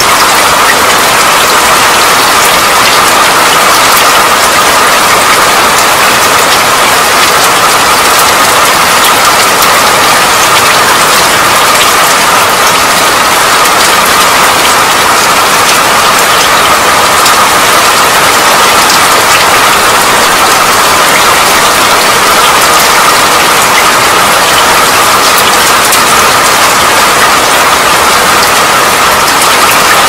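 Steady rain, a loud, even hiss of drops that does not change.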